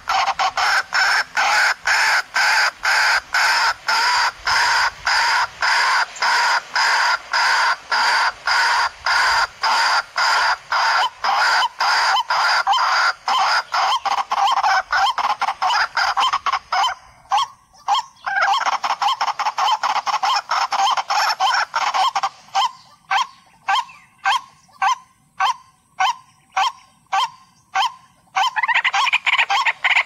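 Waterhen calling: a long run of harsh, repeated 'kurowak' notes, about three a second, played as a lure call to attract the birds. A short break comes a little past halfway, then the notes come more spaced before the dense calling picks up again near the end.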